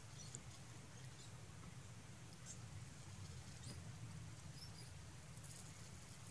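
Near silence: a steady low room hum, with a few faint, scattered high ticks from a dried activated-charcoal and glue peel-off mask being pulled slowly off the skin of the nose.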